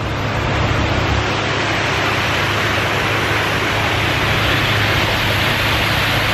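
Large park fountain's water jets spraying and falling, a steady rushing hiss of water.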